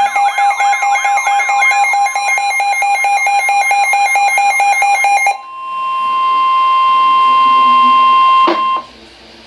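Electronic alert tones between emergency broadcasts. First comes a warbling alarm with a steady pitch and a sweep repeating about twice a second, for about five seconds. Then a single steady tone of about 1050 Hz, the pitch of the weather-radio warning alarm tone, swells for about three seconds and cuts off abruptly.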